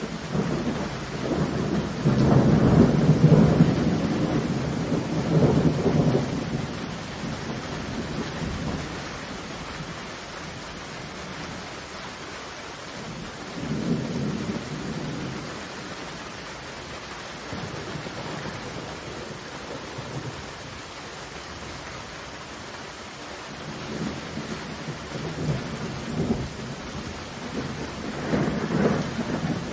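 Heavy rain falling steadily with thunder rumbling: a long loud roll a few seconds in, a fainter one around the middle, and another building near the end.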